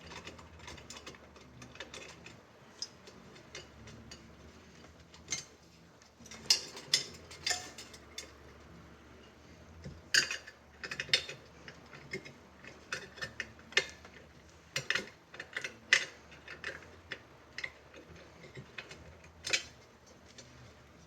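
Irregular metallic clicks and clinks from a bicycle wheel's spokes and nipples being worked loose and pulled out, louder in several bunches through the stretch.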